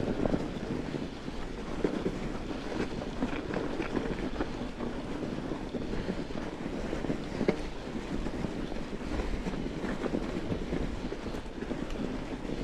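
Mountain bike rolling over a snow-covered trail: steady tyre-and-drivetrain rumble with scattered small knocks and rattles as the bike jolts, and wind buffeting the microphone.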